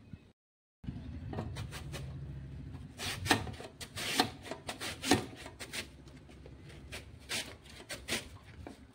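A raw potato scraping across the slicing blade of a stainless steel box grater. The strokes are short and come at uneven intervals, the loudest a few seconds in.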